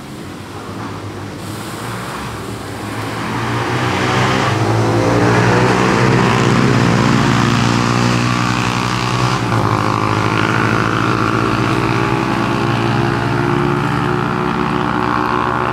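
Water poured onto hot charcoal in a drum grill, hissing and steaming as the fire is doused; the hiss swells a few seconds in. A motor drones underneath, its pitch slowly rising.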